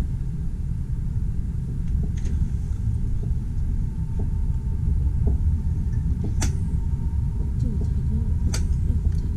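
Steady low rumble inside a high-speed train's passenger cabin as the train pulls away from the station, with a faint steady whine above it. Two sharp clicks sound in the second half.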